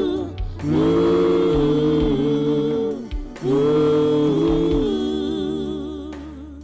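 Gospel worship music with long, wavering sung notes held over a low accompaniment, in two long phrases that fade away near the end.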